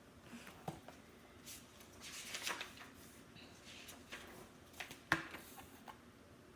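Book-handling noise: a few soft clicks and knocks and a short papery rustle about two seconds in, with the sharpest knock about five seconds in.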